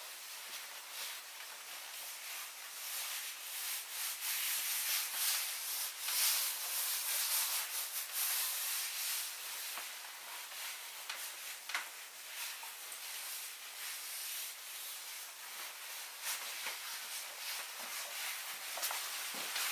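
A long PVC skirt rubbing and rustling against itself as the wearer walks and turns, swelling and fading with her movement, with a few short knocks.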